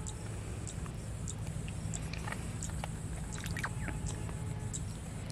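Outdoor ambience: a steady low hum with scattered short, high-pitched chirps.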